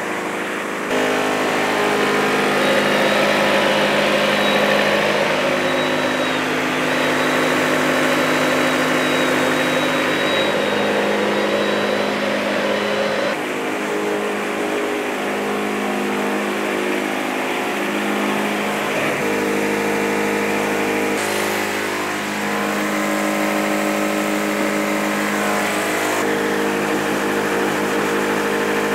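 Portable sawmill's engine running steadily, its pitch and tone shifting a few times.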